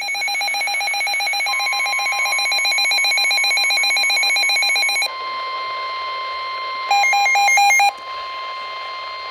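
Emergency weather alert tones. A rapid electronic pulsing beep is joined, about one and a half seconds in, by a steady single-pitch warning tone: the alarm that precedes a National Weather Service warning broadcast. The pulsing beeps stop about five seconds in and return for about a second near the end, while the steady tone holds on.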